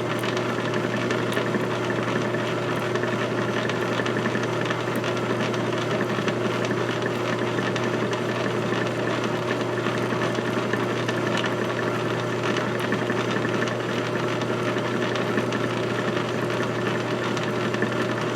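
A motor running steadily: an even mechanical hum that does not change in speed.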